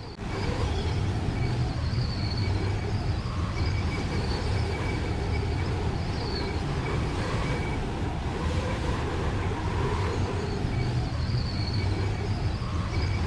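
Steady low rumble of vehicle traffic, with faint, on-and-off high tones over it.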